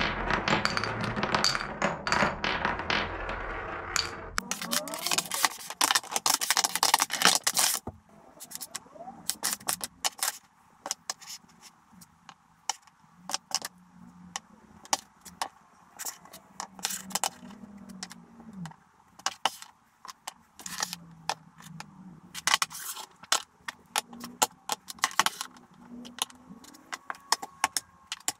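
Marbles rolling through a Cuboro wooden marble run, then wooden Cuboro cubes clattering together for a few seconds, followed by separate wooden knocks and light scrapes as blocks are set down and slid into place on a wooden tabletop.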